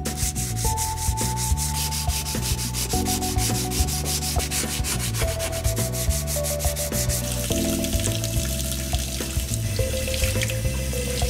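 A flat abrasive scrubbed back and forth by hand over the flat cheek of a steel hatchet head, in quick even strokes of about five a second, cleaning rust and scale off the steel. The strokes fade out about eight seconds in.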